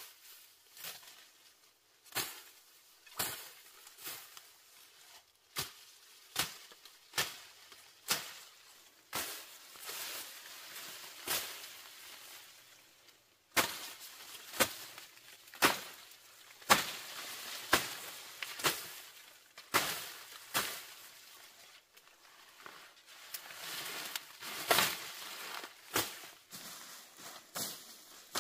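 Brush and tall grass being cut by hand with a blade: a series of crisp slashing strokes, roughly one a second, with rustling of cut stalks and leaves in between.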